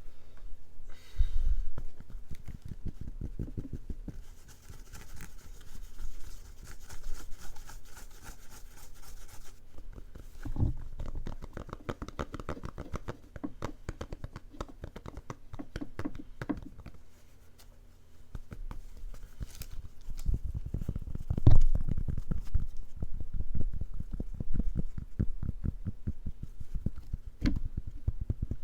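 Close-miked ASMR trigger: quick repeated scratching strokes in several runs, with short lulls and one louder knock about two-thirds of the way in.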